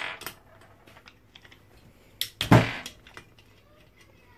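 Screwdriver clicking and scraping against an old electric motor's metal end cover as its screws are backed out, with a heavier knock about two and a half seconds in.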